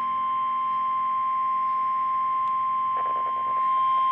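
NOAA Weather Radio warning alarm tone: a single steady beep near 1050 Hz, held without a break. It is the attention signal that announces a weather warning before the voice message.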